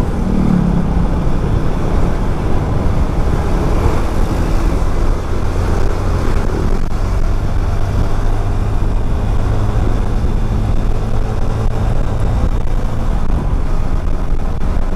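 Motorcycle engine running steadily under heavy wind rush on the microphone while riding in traffic.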